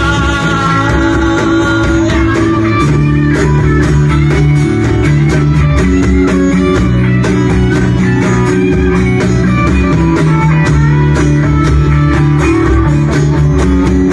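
Live band playing an instrumental passage with no singing: strummed acoustic guitar, electric guitar lines, bass guitar and a cajon keeping a steady beat.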